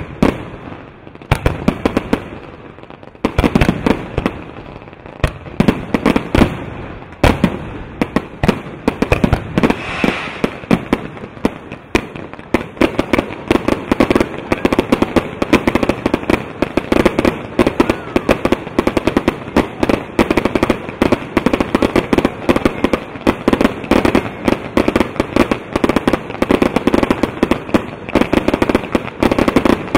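Fireworks display: separate sharp bangs of shell bursts in the first several seconds, then from about twelve seconds in a dense, continuous rapid crackling as gold crackling-star bursts fill the sky.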